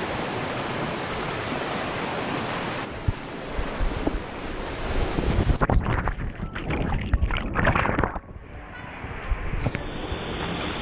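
Steady rush of a waterfall. About halfway in it gives way to a few seconds of loud, irregular splashing and churning water, turns briefly muffled and dull, then the rush comes back near the end.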